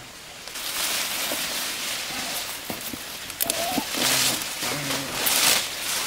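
Sweet potato vines rustling and crackling as they are handled and picked by hand, with a few sharp snaps of stems.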